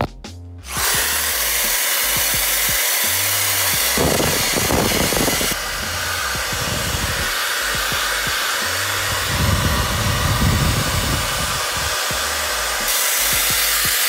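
Power drill spinning a cloth buffing wheel against a bare metal wheel lip coated in metal polish, a steady whir that starts about a second in. Background music with a bass beat plays underneath.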